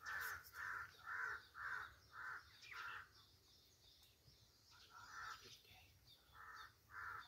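A crow cawing repeatedly and faintly: a quick run of about seven caws, a pause, then a few more near the end.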